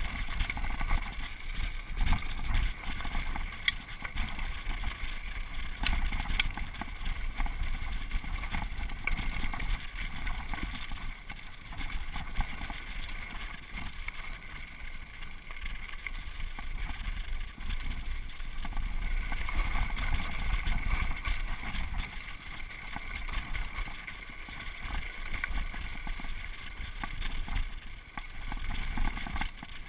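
Mountain bike descending a rough dirt and gravel trail: wind buffeting the microphone, tyres rolling and crunching over the dirt, and frequent clicks and rattles from the bike over bumps.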